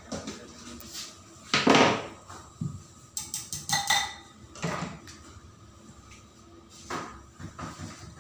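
Knocks and clinks of a small electric food chopper's glass bowl and loose blade being handled, with the motor off. The loudest knock comes about a second and a half in.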